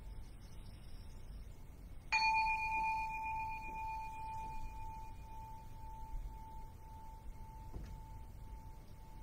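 Zen temple bowl bell (keisu) struck once about two seconds in, ringing out with a tone that pulses as it slowly fades; the last of an earlier strike is still faintly ringing before it. The strike marks a bow in the closing of a Zen service.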